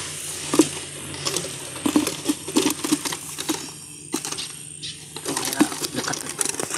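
Irregular clicks and light pattering taps from a just-lifted fish trap full of small sepat (gourami) flapping about inside it.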